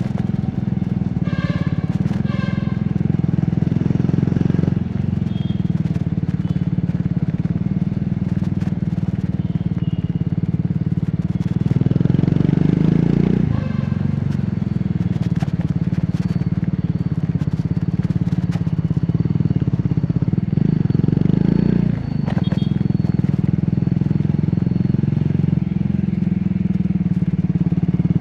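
Triumph Scrambler 400X's single-cylinder engine and exhaust pulling through the gears under the rider, the revs climbing and dropping back at each of three shifts. Near the start, a horn beeps several times in short blasts.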